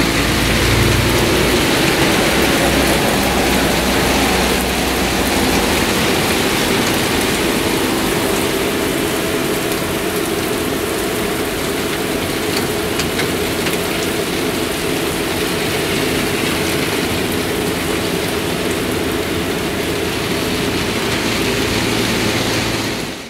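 Heavy rain falling steadily in a downpour. A low vehicle rumble runs under it for the first few seconds and then fades.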